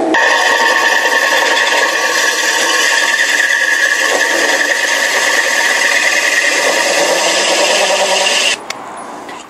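Drill press with a hole saw grinding a hole through the vitreous china of a toilet cistern, cooled with squirted water: a steady grinding with a high whine that cuts off abruptly near the end.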